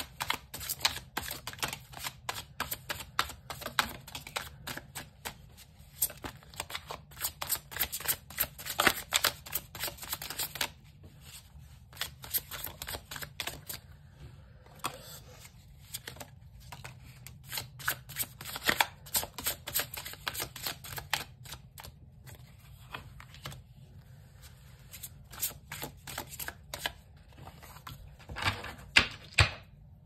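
A deck of oracle cards being shuffled by hand and dealt onto a wooden table: dense runs of quick crisp card clicks and riffling, broken by short pauses.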